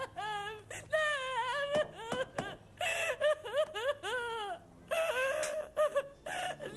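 A woman wailing and sobbing: a string of long, high crying wails that rise and fall, broken by short catches of breath.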